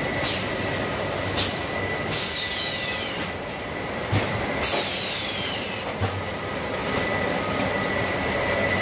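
Bottling-plant packing machinery running: a steady mechanical hum with a constant high whine, broken by about six sharp clacks. Two of the clacks, near two and near four and a half seconds in, are each followed by a whistle-like tone falling over about a second.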